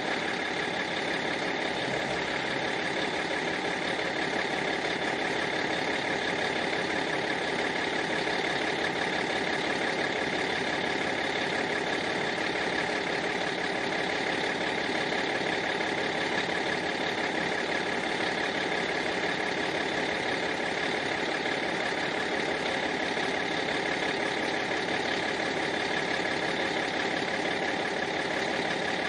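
Bus engine idling steadily, an even running sound with no change in speed.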